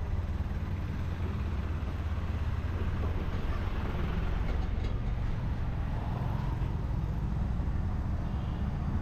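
Street traffic ambience: a steady low engine rumble from vehicles on and beside the road, with no single vehicle standing out.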